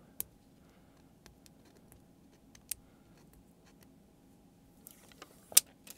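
Protective plastic film being peeled off a small vape box mod as it is handled: scattered light clicks and, near the end, a short crinkle with the sharpest clicks.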